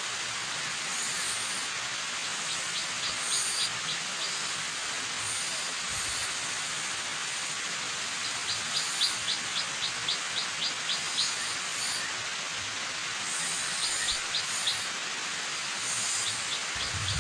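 Steady rushing of a waterfall, with a bird calling over it in short runs of quick high notes, several runs in all, the longest about three seconds with roughly four notes a second.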